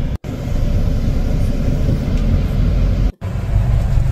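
Double-decker bus running on the road, heard from the upper deck: a steady low rumble of engine and road noise. The sound cuts out abruptly for an instant twice, just after the start and about three seconds in.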